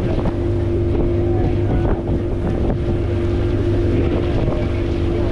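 An engine running at a steady speed, with wind buffeting the microphone.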